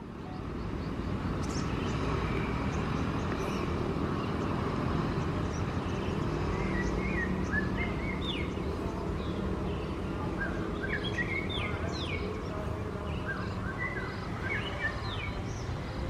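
Birds chirping in short rising and falling calls from about six seconds in, over a steady low rumble. The sound fades in at the start.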